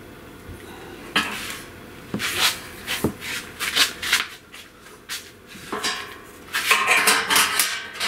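Metal clanking and scraping as the body of a 1917 H.N. White King baritone saxophone is pressed and squeezed to push a sunken tone hole back up. The clanks come in irregular bursts starting about a second in and are thickest near the end.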